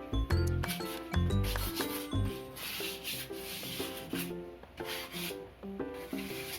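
Sandpaper rubbing by hand on a metal cabinet, light scuffing strokes taking off rust, loudest in the middle, with background music over it.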